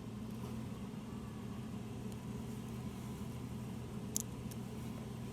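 A single sharp click about four seconds in, from squeezing a Scotch-lock wire tap connector shut so its teeth bite through a wire's insulation, over a steady low hum.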